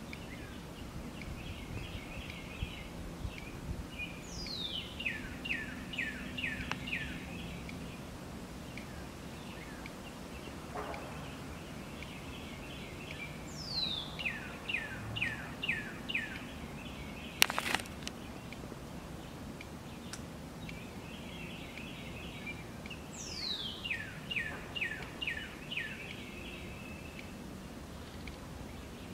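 A songbird sings the same phrase three times, several seconds apart: a high whistle sliding down, then a quick run of about six falling notes. Softer chirping goes on between the phrases over a low steady hum, and there is one sharp click about halfway through.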